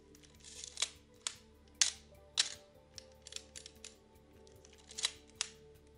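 Canon AE-1 Program 35mm SLR being worked by hand: a string of sharp mechanical clicks from its shutter and controls, the loudest a pair about two seconds in and another pair near the end, with softer clicks between, over soft background music.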